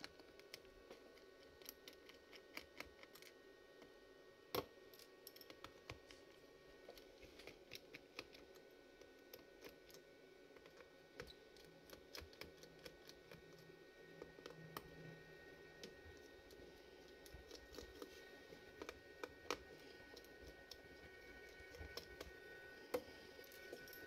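Faint, scattered small clicks and ticks of a precision screwdriver undoing a laptop's back-cover screws, the bit clicking in the screw heads and tapping the case, with a sharper click about four and a half seconds in and another near the end.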